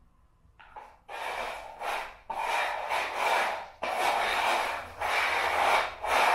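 Three small round containers being slid and shuffled across a ceramic tile floor for a shell game: loud scraping in strokes of about a second each, starting about a second in.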